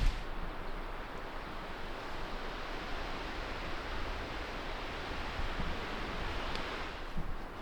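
Strong wind rushing steadily through the forest trees, an even sea-like hiss.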